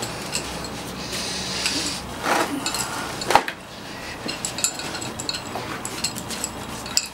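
Bangles on a wrist clinking in many small ticks, with rustling, as hands settle moulded prosthetic breasts into a bra; a sharper knock about three and a half seconds in is the loudest sound.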